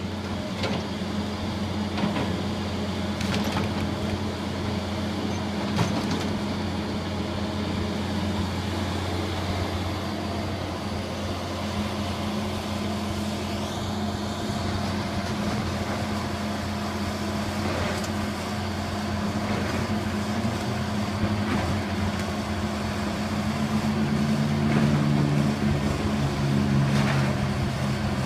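John Deere 210G excavator's diesel engine running steadily while it demolishes a wood-frame house, with scattered sharp knocks and cracks of breaking timber. Near the end a second engine note comes in and the sound grows louder as the machine works under load.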